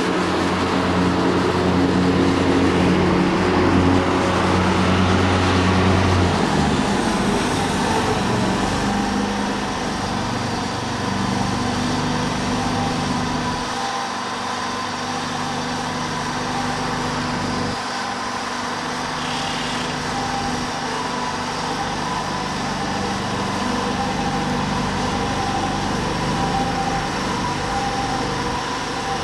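Leaf vacuum's motor running steadily under a constant drone of air. About six seconds in, its deepest hum drops away and the running pitch shifts a little lower.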